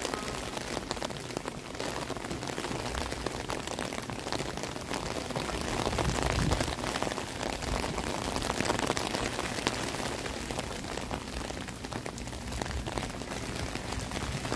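Steady rain, with many small drops striking an umbrella held over the microphone.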